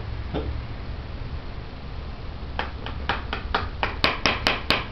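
About a dozen sharp plastic clicks from the cap and bowl being worked on top of a homemade gravity bong bottle, starting a little past halfway and coming faster and louder toward the end.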